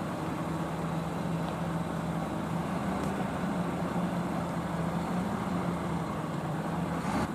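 Heavy truck's diesel engine running steadily at low speed as the loaded semi-trailer creeps forward, with a short click near the end.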